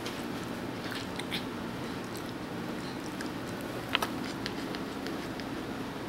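Siberian husky puppy hiccuping: several small, short clicks spread irregularly, the sharpest a quick double click about four seconds in, over a steady low room hum.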